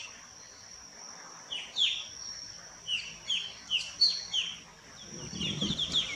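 Square-tailed bulbul calling: short, high notes that each sweep downward, given singly and in quick runs, with a faster run of several just before the end. A steady high-pitched hum runs underneath.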